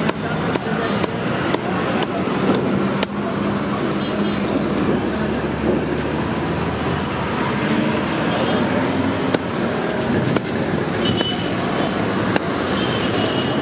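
Steady street traffic and vehicle engine noise, with sharp knocks of a knife chopping fish on a wooden block: a quick run of strikes in the first few seconds and a few more later.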